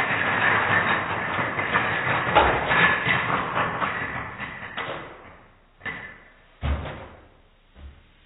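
Rapid clatter of a long line of small dominoes toppling one after another on a hard floor, fading out about five seconds in. Then come a few separate thuds as a row of standing books starts to fall onto one another.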